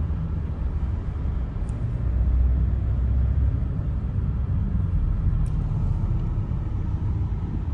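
Road and engine noise inside the cabin of a moving Chevrolet car: a steady low rumble, a little louder about two to three seconds in.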